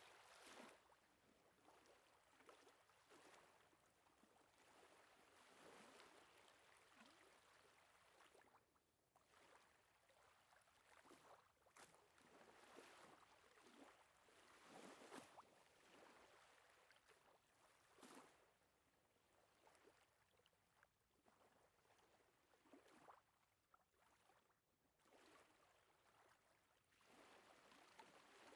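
Faint water-like swishing and lapping that swells and fades irregularly every second or two.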